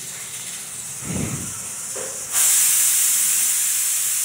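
A loud, steady hiss that starts suddenly about halfway through and holds level.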